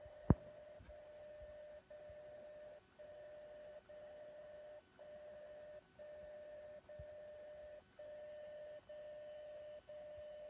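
DCF77 longwave time signal, demodulated by the Teensy receiver into a steady mid-pitched tone that drops out once a second for a short or a longer gap: the second marks of the time code, whose length carries the bit (0 or 1). A sharp click about a third of a second in.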